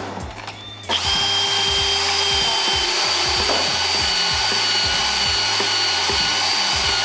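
Cordless power tool running steadily against a steel racing wheel, starting about a second in: a high whine over a rough, even hiss.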